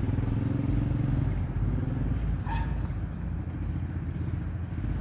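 A motor running: a low steady hum and rumble, with a short high chirp about halfway through.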